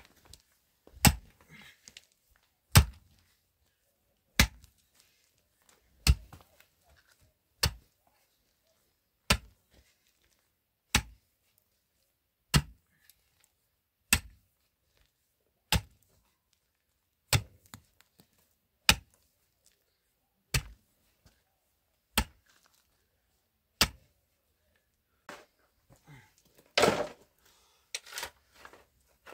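A pick swung into hard earth, striking in a steady rhythm of about one blow every second and a half, about fifteen times. Near the end the blows stop and a shovel scrapes and scoops loose dirt.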